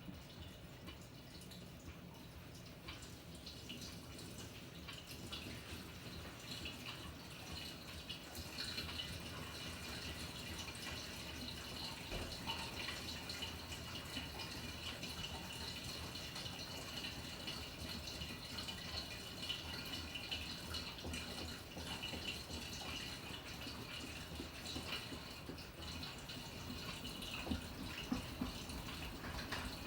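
Water trickling and splashing inside the tub of a Panasonic NA-FA100H9 fully automatic top-loading washing machine during its automatic course; it grows a little louder about a quarter of the way in.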